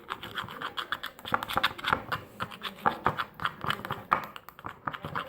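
Shampoo-and-salt slime being stirred in a small bowl, with rapid, irregular clicking and scraping of the utensil against the bowl.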